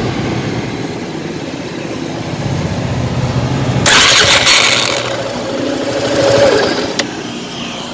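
Suzuki Gixxer SF 250's single-cylinder engine being electric-started and running, with a harsh abnormal noise about four seconds in. The workshop traced this noise to the starter motor mounted on the engine, not to the engine itself.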